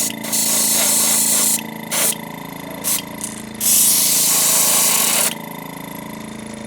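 Airbrush spraying transparent yellow paint onto a crankbait lure's head in short hissing bursts, the longest nearly two seconds, over a steady low machine hum.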